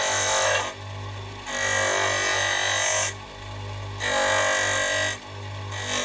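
Bench grinder running, with a flanged bushing pressed against the wheel to grind it down to length: three grinding passes of about one to one and a half seconds each, a fourth starting at the very end, and the grinder's steady hum and whine carrying on in the short gaps between them.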